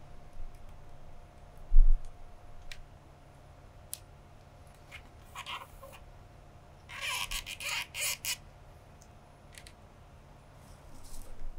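Rattan cane strands being pulled and threaded through a woven cane chair seat: scattered light clicks and two short scratchy rustles as the strands drag through the weave, with one dull low thump about two seconds in.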